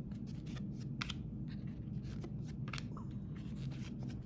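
Cardboard trading cards being handled and turned over from a stack, with several faint clicks and swishes of card stock over a low steady hum.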